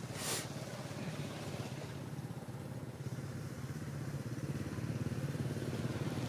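Steady low hum of a small engine running at idle, with a brief burst of noise about a third of a second in.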